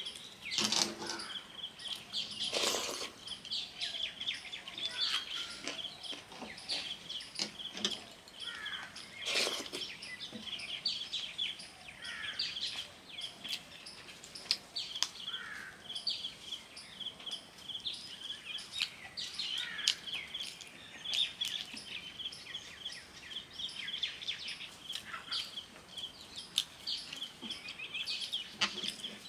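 Close-up eating sounds: fingers squelching through watery soaked rice (panta bhat) and mouth smacks while chewing, as short scattered clicks. Small birds chirp continually in the background.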